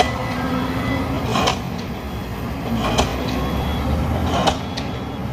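Pile-driver hammer striking ground piles at an even pace, one sharp blow about every second and a half, over the steady low running of excavator engines.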